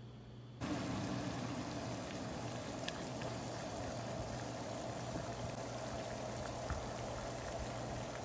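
Water boiling hard in a pot under a glass bowl of melting chocolate, a double boiler: a steady bubbling hiss that starts abruptly about half a second in.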